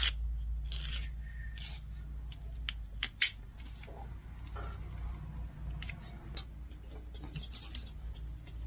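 iCrimp ICP-240 wire stripper cutting and pulling the insulation off thick 0-gauge power cable: a string of short, irregular snips and scrapes over a low steady hum.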